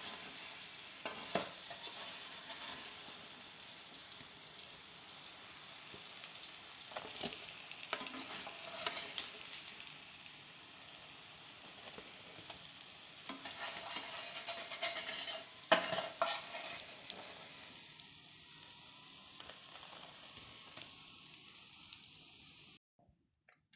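Rava-coated brinjal slices sizzling steadily in hot oil in a pan, with a few short clicks and scrapes of a utensil against the pan as the pieces are handled. The sizzling cuts off suddenly about a second before the end.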